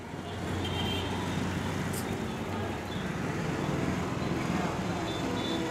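Street traffic noise with a motor vehicle engine running close by, getting louder shortly after the start. A single short click about two seconds in.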